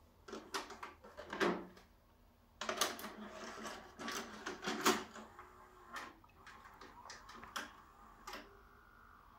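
VHS cassette being handled and pushed into a Samsung SV-221X VCR, the deck's loading mechanism drawing it in and threading the tape with a run of plastic clicks and mechanical clunks. The clatter is densest between about three and five seconds in, followed by a few single clicks as the mechanism settles.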